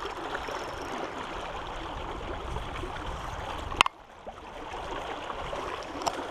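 River water flowing steadily around a float tube. A sharp click comes just before four seconds in, after which the water sound drops out abruptly and builds back up over about a second.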